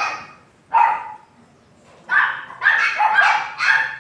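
A dog barking: one bark just under a second in, then a quick run of four barks, about two a second, near the end.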